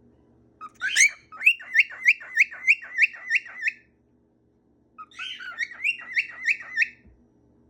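Pet bird calling in two runs of quick repeated chirps, about four a second: one starting about half a second in and lasting some three seconds, the other from about five seconds in for two seconds. A faint steady hum sits underneath.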